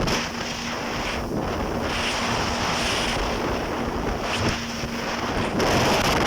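Jet ski running on open water: a steady engine hum under heavy wind buffeting on the microphone and rushing water. The wind and water noise grow louder near the end.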